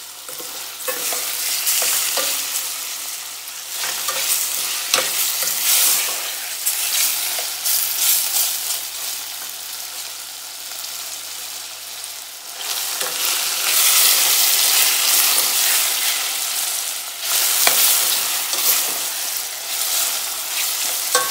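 Chicken pieces with onion and turmeric sizzling as they fry in a stainless-steel pot, browning with the spices, while a metal spoon stirs them, scraping and clicking against the pot. The sizzle grows louder for a few seconds past the middle.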